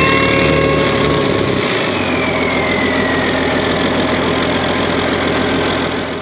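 Tractor engine running loud and rough, with a low hum that drops away about a second and a half in and a high whine that falls in pitch a couple of seconds later.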